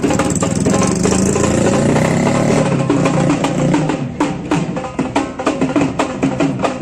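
Music with drums and percussion playing a fast, steady beat.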